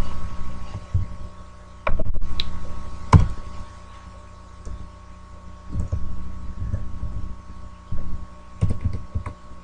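Steady electrical hum with a scattering of short clicks and dull thumps, like computer mouse clicks and desk handling while files are being chosen.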